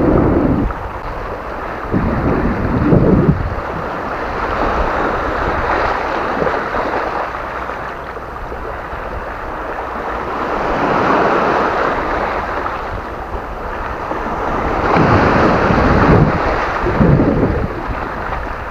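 Small sea waves washing in and draining back over a pebble beach, swelling every few seconds. Wind buffets the microphone in low gusts near the start and again about three-quarters of the way through.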